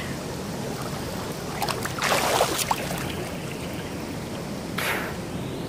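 River water rushing and lapping against a phone held at the surface, with two louder splashes, about two seconds in and near the end.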